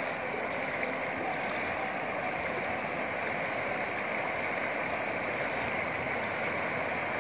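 Steady rush and slosh of knee-deep floodwater as people wade through it.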